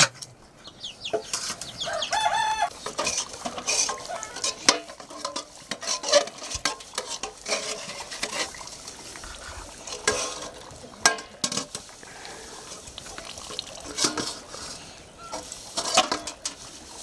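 Stainless steel plates, pots and pans knocking and clinking against each other as they are handled and washed, in a string of irregular metallic knocks. A brief high-pitched call sounds about two seconds in.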